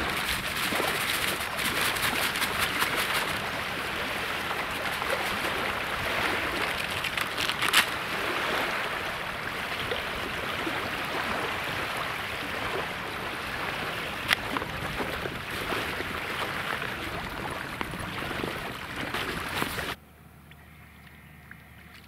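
Fishing groundbait being mixed by hand in a bucket: a steady grainy rustle with fine crackles, cut off suddenly near the end.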